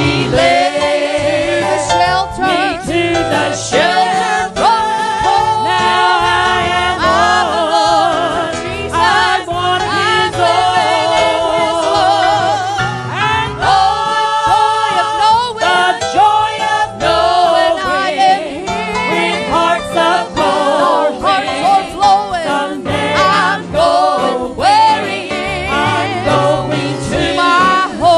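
Country-style gospel music: a song with singing and vibrato over accompanying instruments, running on without a break.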